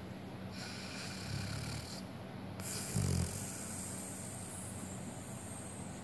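Siberian husky snoring in its sleep, close to its nose: two snores, the second and louder one about three seconds in.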